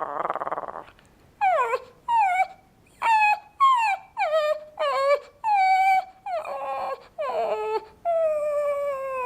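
A dog's whimpering imitated by voice: a brief buzzing rattle, then a run of about eleven high, short whines, each falling in pitch, the last drawn out and sliding down near the end.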